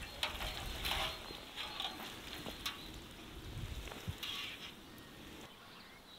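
Water from a watering can's sprinkler rose pattering and spattering onto the leaves of cabbage seedlings, a steady hiss of many small drop ticks that thins out near the end.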